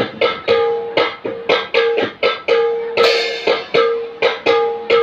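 Bhaona percussion accompaniment: a khol barrel drum and hand cymbals playing a fast, even rhythm of about four strokes a second, with a ringing tone held between the strokes.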